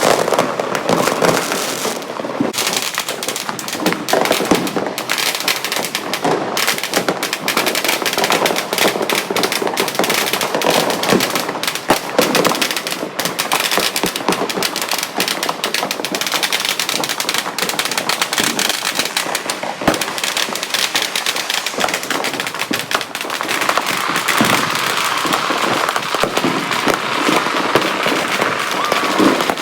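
Firecrackers and fireworks going off in a dense, continuous barrage of cracks and pops with no let-up, many at once from all around.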